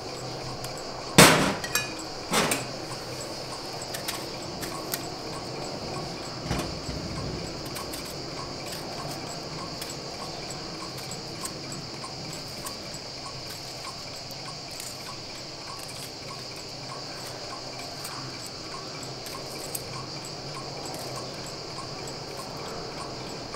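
Steady high-pitched insect chirring runs throughout, with a faint regular ticking. Two sharp knocks come about a second apart near the start, and a softer one a few seconds later.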